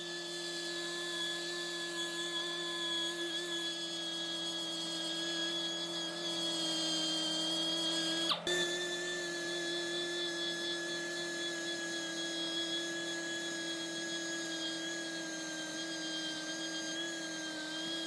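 A small high-speed power tool motor running steadily with a constant whine, briefly broken by a click about halfway through before it carries on.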